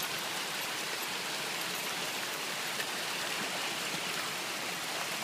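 Shallow water rushing steadily over a smooth rock slab of a natural water slide.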